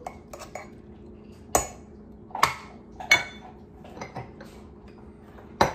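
Stainless steel measuring cups clinking and knocking against the food processor bowl and the counter. There are about five sharp clinks roughly a second apart, a few with a brief metallic ring.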